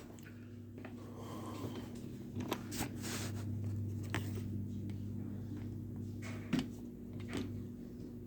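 A metal spoon scraping and tapping sticky oat cookie mixture out of a bowl onto wax paper: a few faint clicks and scrapes over a steady low hum.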